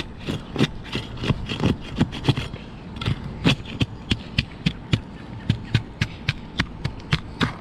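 Flat steel pry bar worked in under asphalt shingles to loosen them and break their seal strips: a steady run of sharp clicks and scrapes, about two or three a second.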